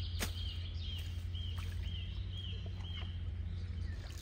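An animal calling: a short high chirp that rises and falls, repeated about twice a second, stopping about three seconds in, over a steady low hum.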